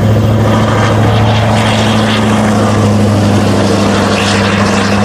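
Electric pressure washer running and spraying water: a steady low motor hum under a loud hiss of spray.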